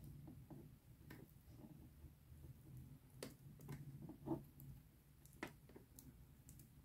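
Quiet scattered clicks and crackles of metal tweezers picking loose shed skin off a bearded dragon, the sharpest about four seconds in, over a faint low hum.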